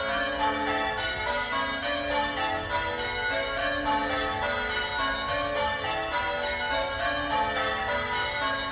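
A light ring of six Gillett & Johnston church bells (1928, tenor in A) rung full circle in Devon call changes, each bell striking in turn in a steady, even rhythm. The treble sounds loudest.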